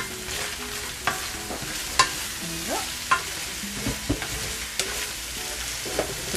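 Wooden spatula stirring shredded chicken and onion in a hot nonstick pan: a steady frying sizzle with sharp clacks of the spatula against the pan about once a second.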